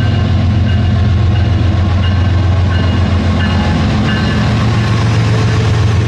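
A train running: a steady, loud low hum with short high-pitched tones coming and going above it.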